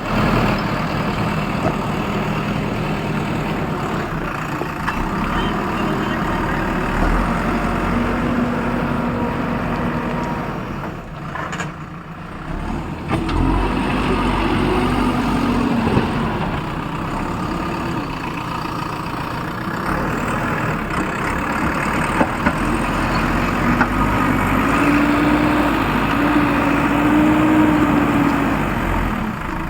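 A heavy vehicle's engine running steadily, its pitch rising and falling briefly a few times.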